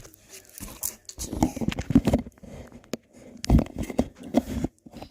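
Slime being squeezed and squished in the hands, wet crackly squelching in two bouts, the second starting about three and a half seconds in.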